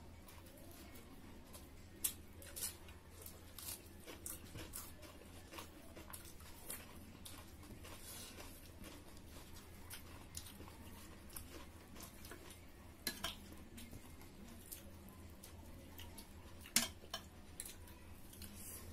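People eating rice and pork curry by hand: soft chewing, with scattered sharp clinks of plates and a steel serving spoon, the loudest about two seconds in, around thirteen seconds and near seventeen seconds. A low steady hum runs underneath.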